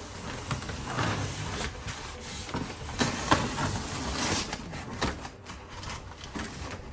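Cardboard shipping box being pulled open by hand: irregular rustling and scraping of cardboard with a few sharp clicks.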